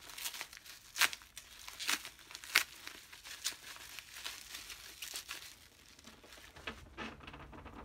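Packaging wrap being crinkled and torn open by hand to unwrap a part, an irregular run of crackles and rustles that thins out near the end.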